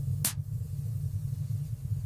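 Wood fire in a fireplace burning with a steady low rumble, and one sharp crackle about a quarter second in.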